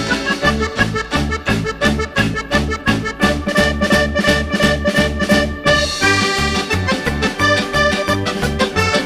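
Upbeat background music with a steady, bouncy beat of bass notes and chords under a pitched melody.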